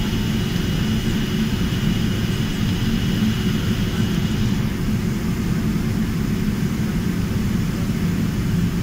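Jet airliner cabin noise while taxiing: the engines running at low power under a steady low rumble, with a faint high whine that fades out about halfway through.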